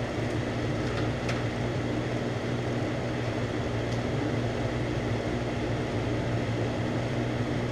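Metal lathe running with a steady hum, its spindle turning a Delrin bushing while a hand deburring tool takes the burr off the edge, with a few faint ticks.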